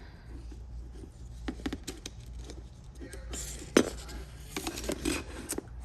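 Light clicks, taps and rustling from hands threading a bungee cord into the H-Track rail, with one sharper click a little under four seconds in.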